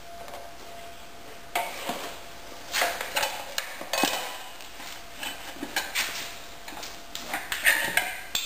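Metal tools clinking and scraping against the rear wheel rim of a Honda CRF150R dirt bike as the stubborn, lubed tire is worked off the rim. The clicks and scrapes are irregular, starting about a second and a half in and coming thicker toward the end.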